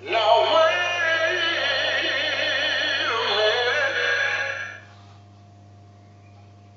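Animated plush dog toy with flapping ears playing a tinny sung tune with a wavering vibrato through its small speaker. The song cuts off just under five seconds in, leaving a faint steady hum.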